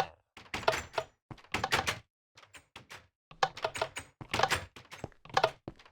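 Irregular clicking and clattering in short clusters, roughly one a second, with brief silent gaps between. No alarm tone is sounding.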